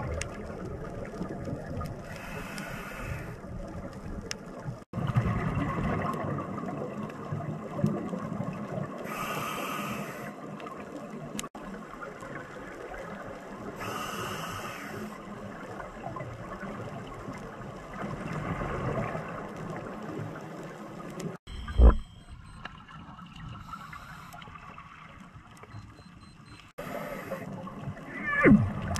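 Muffled underwater sound heard through a camera housing, with bursts of scuba exhaust bubbles from the diver's regulator every few seconds. A sharp knock about two-thirds of the way through.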